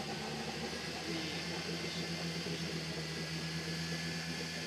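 Steady mechanical hum from the off-road 4x4 stuck in mud, a steady low tone growing a little stronger about a second in.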